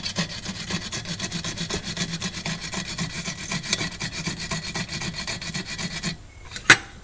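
Wire brush scrubbing a copper-to-aluminum blast joint on an aluminum refrigerator evaporator coil in quick, even back-and-forth strokes. The joint is being cleaned for soldering a refrigerant leak. The brushing stops about six seconds in, followed by a single sharp click.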